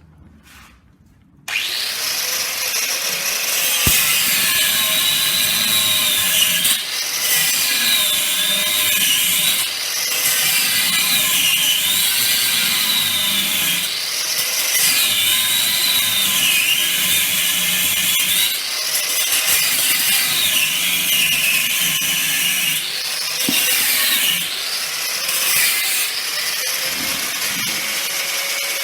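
Power tool cutting through seized nuts, starting about a second and a half in. Its high motor whine dips and recovers every few seconds as it bites into the metal.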